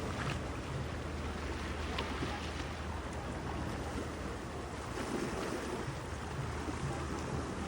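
Sea waves washing onto a sandy beach, a steady rushing surf with a low rumble underneath.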